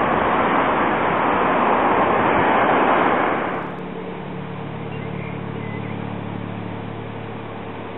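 Wind rushing over the microphone, cut off suddenly about three and a half seconds in; then a quieter steady low hum as a Croydon Tramlink tram approaches along the track.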